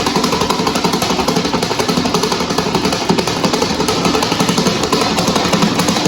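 Ventisol 40 cm electric fan running at full speed with an oversized two-blade propeller: a steady rush of air and a fast, even rattle as the unbalanced fan shakes and hops.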